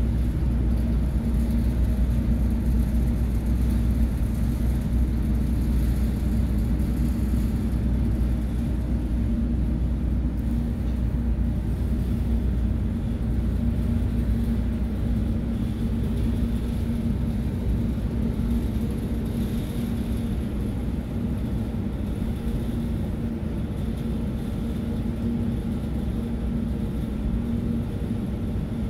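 Ferry's engines running under way: a steady low rumble with a constant hum over it.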